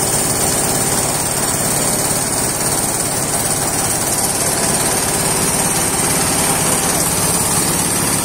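Hammer mill running steadily, driven by its small single-cylinder diesel engine, with a fast even engine beat under the whirr of the mill while it grinds glass bottles into powder.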